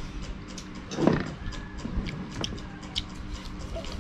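Metal spoon clinking and scraping against a ceramic plate of rice, in scattered light clicks, with one louder, brief sound about a second in.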